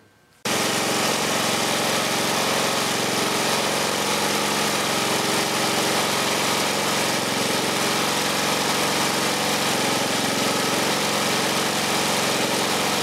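Yard-Man walk-behind lawn mower's single-cylinder engine running steadily, a good-running engine. It comes in abruptly about half a second in.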